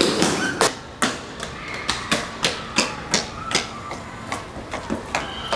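Quick footsteps of shoes on a paved walkway, about three steps a second.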